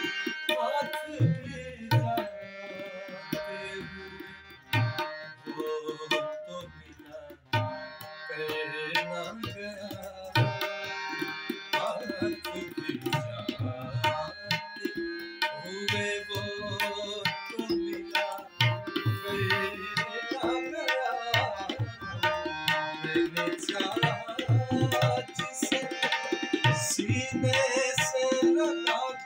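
Tabla playing a steady rhythmic accompaniment. Deep bass strokes from the bayan mix with sharp strokes from the dayan, under long held melodic notes.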